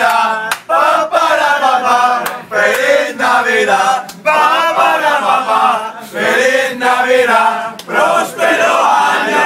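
A crowd of young men chanting loudly together, in phrases a second or two long with short breaks between them.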